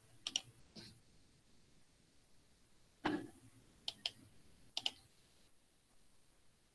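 A few faint, sharp clicks at a computer, several in quick pairs, with a slightly heavier click about three seconds in.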